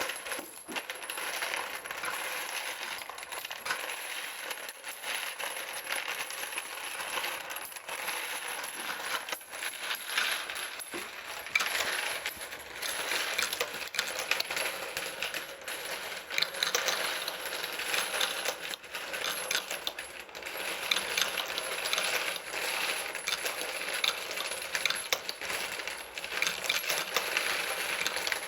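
Brass 9mm Luger cartridge cases clinking and clattering continuously as they tumble through a 3D-printed case feeder, a dense stream of small metallic clicks.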